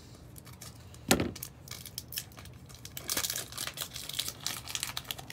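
Foil wrapper of a Pokémon card booster pack crinkling and tearing as it is opened, with one sharp knock about a second in.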